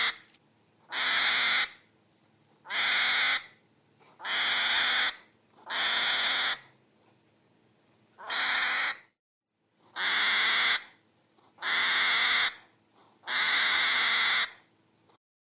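An animal's harsh, hissing screech call, repeated about eight times at roughly one-and-a-half-second intervals.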